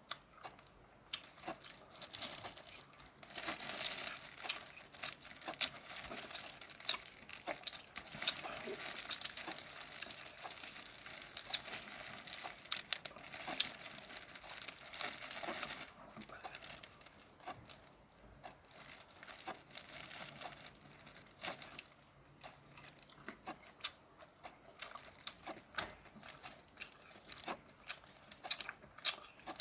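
Shells of steamed shrimp crackling and crinkling as they are pulled apart and peeled by hand. The crackle is dense for the first half, then thins to scattered clicks.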